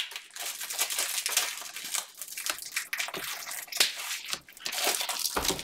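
Trading-card pack wrappers and cards being handled, crinkling and rustling with quick irregular crackles.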